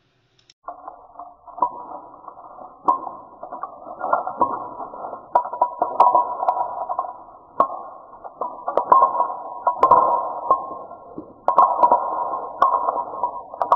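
Scattered sharp clacks of wooden craft sticks and dominoes knocking and falling as a stick-and-domino structure collapses, over a steady mid-pitched drone that starts about a second in.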